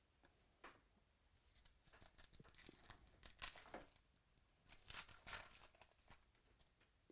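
Foil wrapper of a trading-card pack torn open by hand: faint crinkling and tearing in two spells, about two to four seconds in and again about five seconds in.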